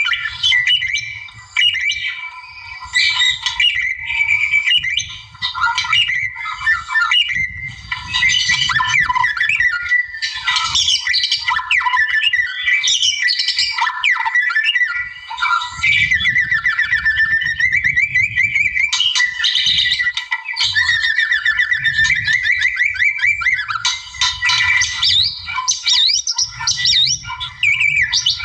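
White-rumped shama singing without pause: a fast, varied stream of whistles, trills and harsh rasping notes.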